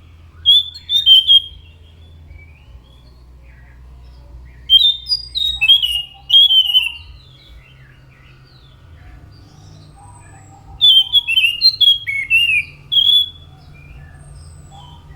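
An anis macan thrush singing: three phrases of quick, clear whistled notes, each run of notes stepping downward, with pauses of a few seconds between them. A faint steady low hum sits underneath.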